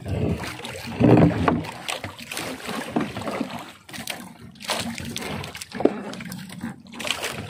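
Water splashing, dripping and sloshing as a wet gill net is pulled in over the side of a small boat, with irregular knocks and rustles of handling. A brief voice comes about a second in.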